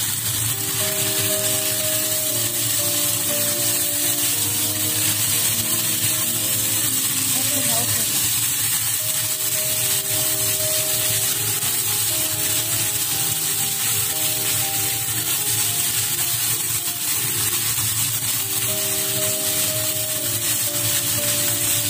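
Sliced beef sizzling steadily as it is stir-fried in a nonstick frying pan and turned with a silicone spatula. Background music with held notes plays over it.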